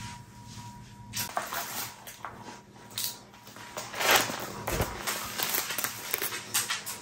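Crystal-rhinestone-covered thigh-high boot being handled: irregular crinkly scraping and rustling of the rhinestones and fabric, with scattered sharp crackles and the loudest scrape about four seconds in.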